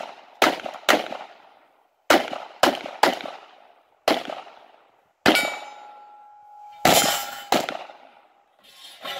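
Pistol shots fired in quick strings, about nine sharp reports in all, each trailing off in an echo. After one shot a little past halfway, a struck metal target rings with a steady tone for over a second.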